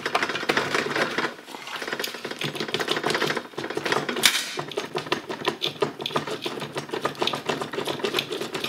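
A ratchet wrench clicking rapidly and steadily as it turns the screw of a puller to draw a part off a LUAZ 969M portal axle hub.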